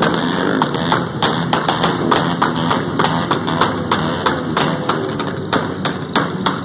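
Small motorcycle engines of a large group ride running together, under a rapid, uneven series of sharp taps, about three to five a second.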